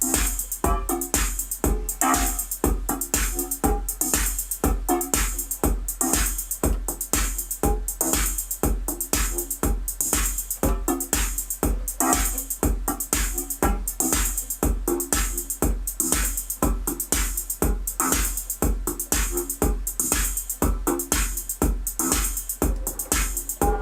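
Repetitive electronic loop: a drum machine's kick about twice a second with bright ticking on top, under short, repeating analog-synth notes from a Korg Volca Keys playing a factory preset.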